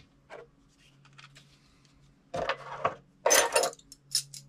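Metal hand tools, combination wrenches, clinking and rattling as they are picked up off a wooden workbench. There is a scrape a little past two seconds in, a louder clatter about a second later and a couple of short clicks near the end.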